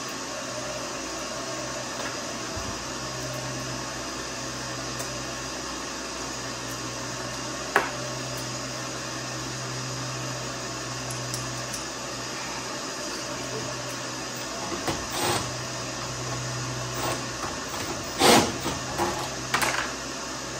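Steady motor drone with a low hum that comes and goes every few seconds, a sharp knock about eight seconds in, and a few clatters of handling near the end.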